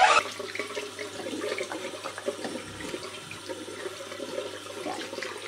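Bathroom tap running into a sink while hands are rubbed and rinsed under the stream, with small splashes.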